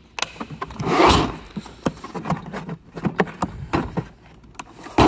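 Hard plastic tool cases being handled in a toolbox drawer: a scraping slide about a second in, scattered plastic clicks and knocks, and another scrape near the end.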